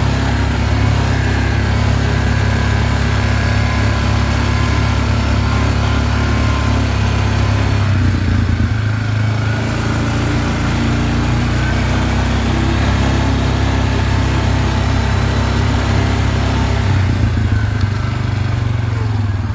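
ATV engine running steadily at low trail speed, its low note dipping briefly about eight seconds in.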